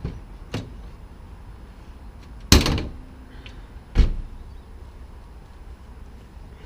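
Two light knocks, then two heavy thumps about a second and a half apart, the first ringing on briefly.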